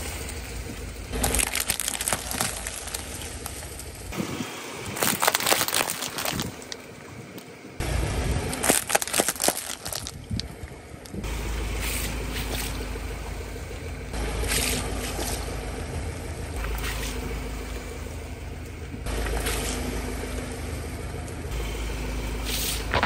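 A car tyre rolling over plastic cups and balls of water-gel beads: cracking plastic and squishing, crunching beads in several short takes. A car engine idles steadily under the later takes.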